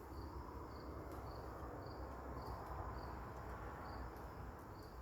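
Hum of a honeybee colony in an open hive, with a cricket chirping steadily over it, about two to three chirps a second.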